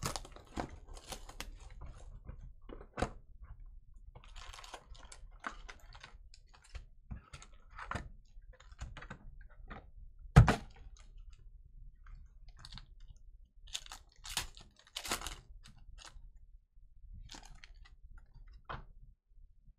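Foil wrappers of Panini Chronicles trading-card packs being handled and torn open: scattered crinkling and clicks of packs and cards, with one sharp knock about ten seconds in and a burst of foil crinkling near the end.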